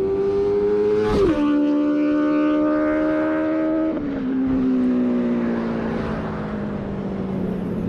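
Motorcycle engine pulling through the gears at high revs, its pitch dropping abruptly at upshifts about a second in and again about four seconds in, then falling slowly toward the end.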